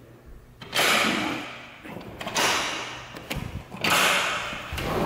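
Sliding back door being pushed open along its track: three rolling, noisy swells, each under a second long.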